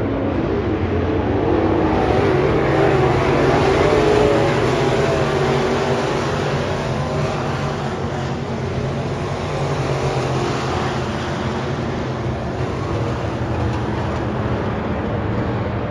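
Several dirt-track race cars' V8 engines running at racing speed around the oval, the engine note rising and falling as the cars accelerate off the turns and pass. The cars are loudest a few seconds in.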